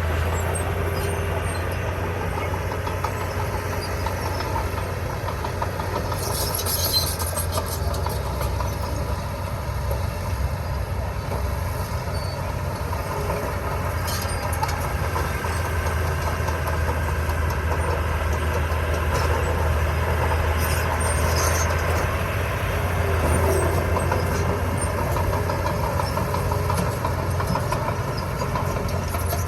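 Diesel engine of heavy earthmoving machinery running steadily as a deep, even drone, with a few brief light rattles.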